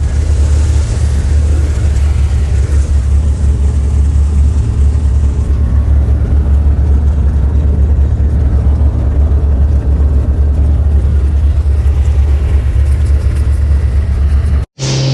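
Steady loud drone of a small light aircraft's engine and propeller, heard from inside the cabin during the flight; it cuts off abruptly near the end.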